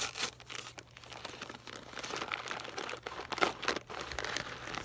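A brown paper mailer envelope being torn open and crinkled by hand: irregular paper rustling with a few sharper crackles, the loudest about three and a half seconds in.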